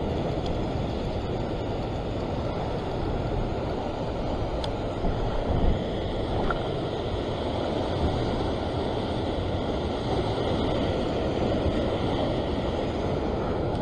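Steady rushing of sea surf breaking and washing against a rocky shore ledge.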